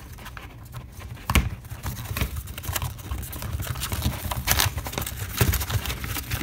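A cardboard pen box being forced into a clear plastic case by hand: rubbing and scraping of card against plastic with scattered clicks and knocks, the sharpest knock about a second and a half in.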